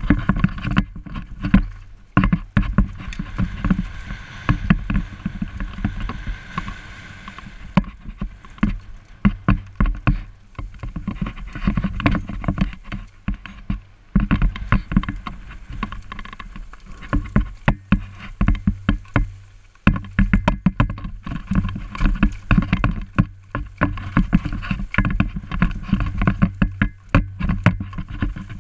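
Mountain bike rattling and knocking over a rough, bumpy trail: a dense, irregular run of knocks and thuds over a low rumble. There is a stretch of hiss a few seconds in.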